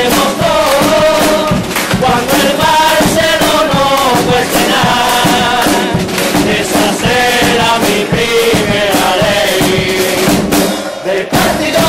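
Chirigota carnival chorus: a group of men singing together to Spanish guitars with a drum beat. The singing drops briefly near the end before starting again.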